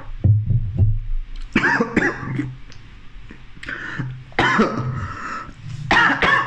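A man coughing several times in rough bursts into his sleeve.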